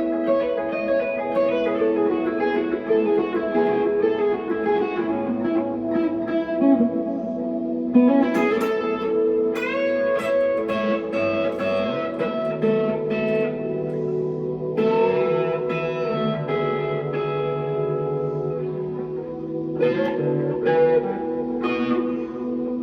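1963 Fender Telecaster electric guitar played through a valve amp with delay and reverb, single plucked notes and chords ringing on and blending into their echoes.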